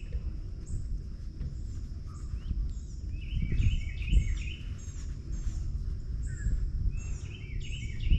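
Songbirds chirping in quick series of short, falling notes, one bout about three seconds in and another near the end, over a steady low rumble.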